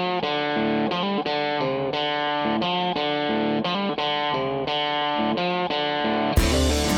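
Background music: an electric guitar with effects plays a melody of distinct notes. Near the end the music turns suddenly fuller and louder, with heavy low end coming in.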